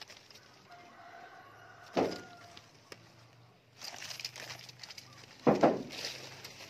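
Chickens calling in the background, with two short loud calls, one about two seconds in and one about five and a half seconds in. Mango leaves rustle as they are handled in the second half.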